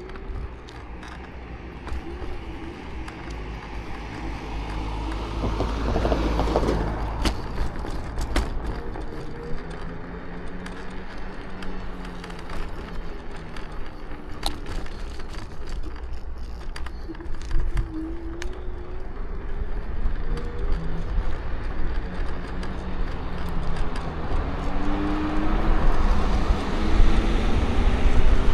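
Electric scooter being ridden: a motor whine that wavers in pitch and climbs near the end, over a low rumble, with many sharp cracks and creaks from the scooter itself, which crackles and creaks badly.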